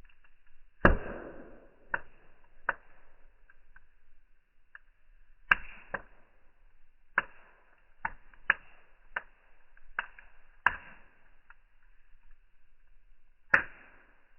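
Fire crackling: about a dozen sharp pops at irregular intervals, the loudest about a second in, with two more strong ones near the middle and near the end.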